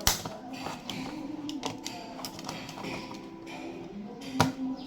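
Plastic clicks and taps from a wall light switch's housing being unclipped from its cover, with a sharp click at the start and another about four and a half seconds in.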